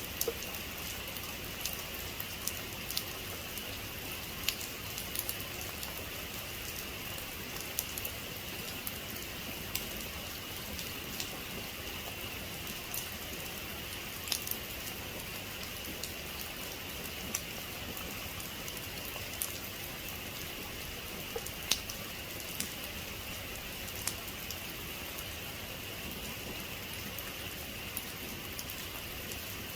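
Steady rain falling on a hard surface: an even hiss with scattered, irregular sharp ticks of individual drops. No thunder.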